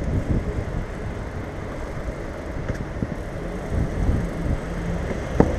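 Low, steady rumble of a hybrid bike riding over wet city pavement, heard from a camera on the bike, with a single sharp knock near the end.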